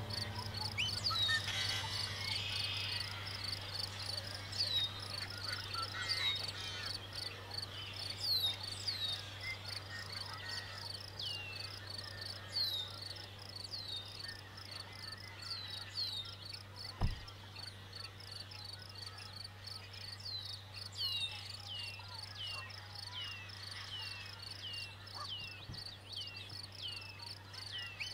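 Wetland ambience: a steady high chorus of insects, with short falling chirps repeated about once a second and a faint low hum underneath. A single low thump stands out about two-thirds of the way through.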